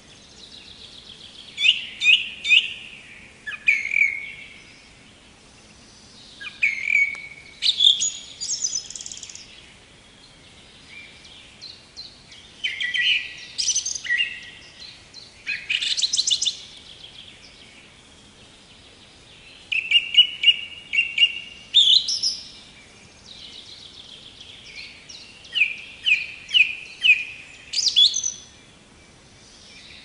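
Wild songbirds singing: short phrases of quick, high chirps and sweeping notes every few seconds, with pauses in between.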